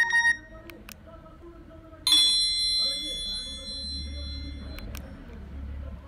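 Nokia 6111 mobile phone previewing message alert tones through its small speaker. A short beeping tone ends at the start, followed by a couple of soft keypad clicks. About two seconds in, a bright bell-like chime sounds and rings out, fading over a couple of seconds, and two more key clicks come near the end.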